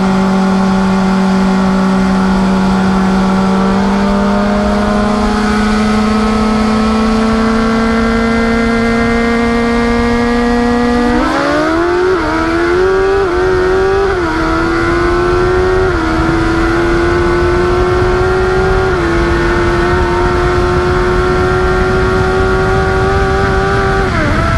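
Inline-four sportbike engine cruising at a steady 60 mph roll, then opened to full throttle about eleven seconds in for a roll-on race, rising sharply in pitch through several quick upshifts before backing off near the end. Wind rush on the microphone throughout.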